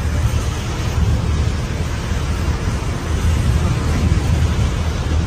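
Storm wind buffeting the microphone in a steady deep rumble, over the hiss of heavy rain.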